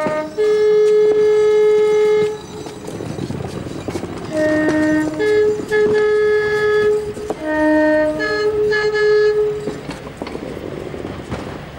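Diesel locomotive two-tone air horn: a long high note, then a low note and a high note, sounded twice. Between and after the horn blasts a diesel engine runs under load.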